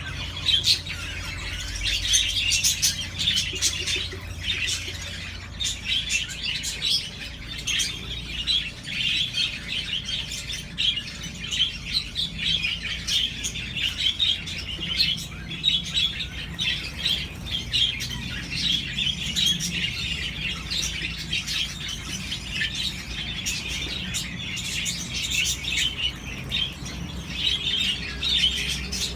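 Pet budgerigars and lovebirds chirping and chattering over each other in a busy, unbroken stream of short calls.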